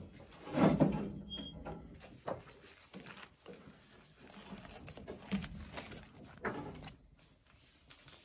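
Embers and wood being pushed around inside a small wood stove: scattered knocks and soft crackles, loudest about a second in.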